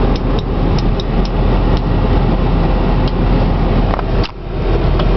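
Cab noise of a 2002 Ford F-150 with the 5.4-litre V8 under way: a steady rumble of engine and road. There are a few scattered light clicks, and the rumble briefly dips about four seconds in.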